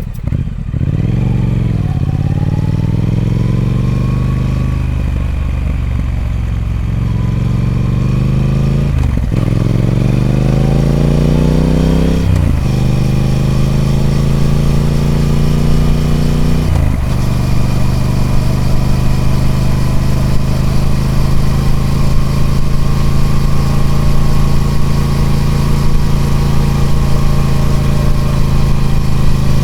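Triumph Speed Twin 1200's 1200 cc parallel-twin engine on its stock exhaust, under way. The revs ease off, then climb hard with a quick gear change after each climb. It then settles to a steady drone at cruising speed for the rest.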